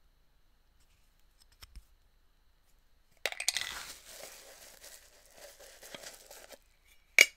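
Plastic packaging crinkled and torn by hand, starting about three seconds in and lasting about three seconds, with a sharp click near the end.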